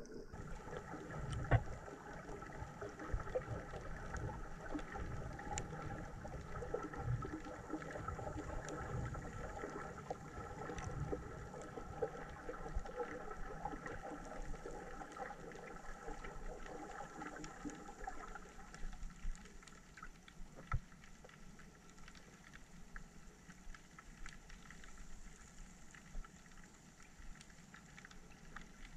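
Muffled underwater sound picked up by a submerged camera: a steady hum of several tones that fades about two-thirds of the way through, with irregular low knocks and faint clicks.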